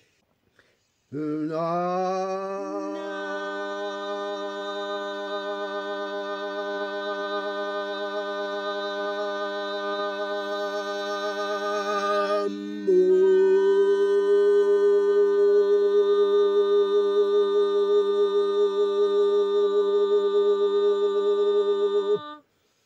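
A human voice chanting one long sustained tone, sliding up into pitch about a second in. About halfway it breaks briefly, then swells louder and brighter, and it stops shortly before the end.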